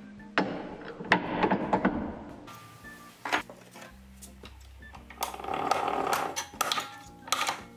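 Hand-cranked bench slip roll being worked on sheet brass for lamp parts: metal clanks and rattles from the rollers and crank, with several sharp metal knocks spread through.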